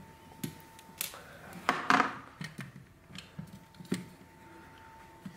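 Plastic housing of a Blue Gizmo BG32 infrared thermometer being handled and prised apart: a scatter of sharp plastic clicks and knocks, the loudest about two seconds in.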